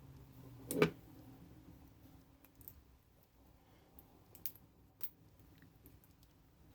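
Small scrap being handled: one knock just under a second in, then faint scattered clicks.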